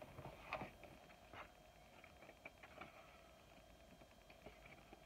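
Faint rustling and a few light clicks of a paper record inner sleeve and a printed catalogue insert being handled, in a quiet room.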